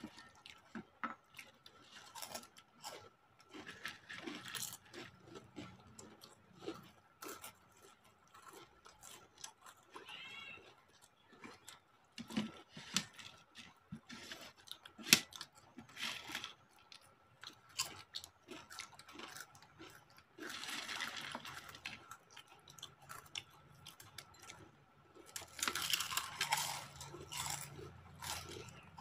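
People crunching and chewing crisp fried snacks (chips and fryums), a scatter of sharp crunches and clicks of the crisp pieces breaking.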